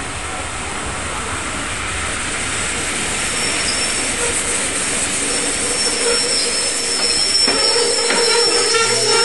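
Steam hissing steadily from the standing steam train hauled by Black Five locomotive 45407, slowly growing louder, with a thin high whistling tone joining about three seconds in.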